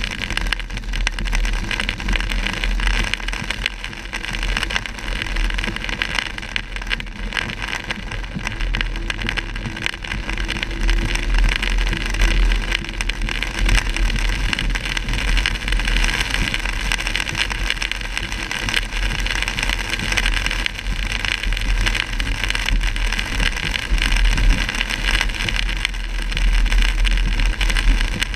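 Heavy rain and wet-road noise heard from inside a moving car: a steady wash of rain and tyre spray over a low rumble.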